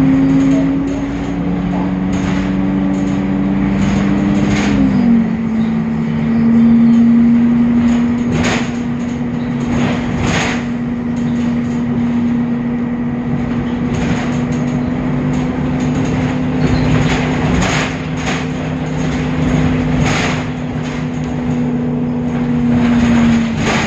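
Temsa Avenue LF city bus with a DAF diesel engine running with a steady deep drone that steps down in pitch about five seconds in and rises again near the end, a deeper sound than usual for this bus type. Sharp knocks and rattles come irregularly throughout.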